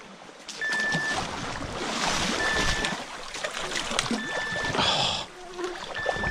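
Dip nets splashing and churning through shallow creek water, loudest about two and five seconds in. Over it a backpack electrofisher gives a short, steady beep four times, about every two seconds, the alarm that sounds while its anode is live in the water.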